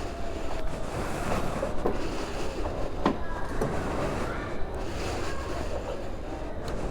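Wind rushing over the microphone with a steady low rumble, and a sharp click about three seconds in.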